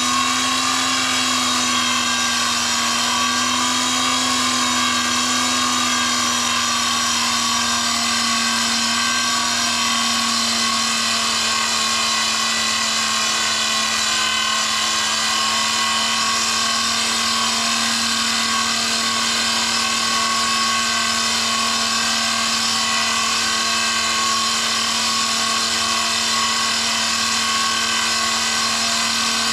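A Levin 8mm jeweler's lathe running under its variable-speed Hamilton Beach reversing motor and belt drive, a steady whine that dips slightly in pitch in the first several seconds and then holds.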